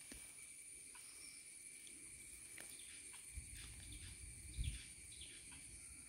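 Faint outdoor ambience of insects buzzing in two steady high pitches, with a few short chirping calls scattered through. A low rumble of handling or wind noise comes in past the middle, with a thump near the end of it.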